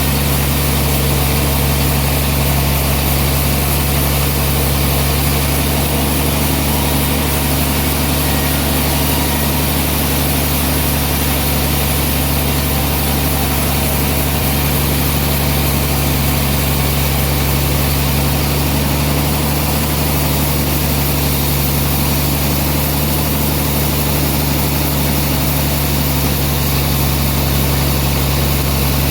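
Sawmill machinery running with a steady low drone and an even hiss, holding level without change.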